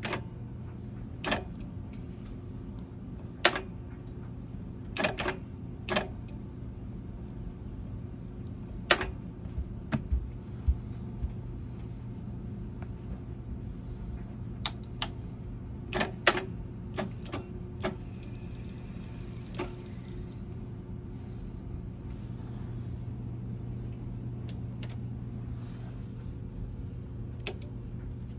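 Pioneer RT-1020L reel-to-reel tape deck's transport keys being pressed: about twenty sharp mechanical clicks at irregular intervals, some in quick runs, over a steady low hum.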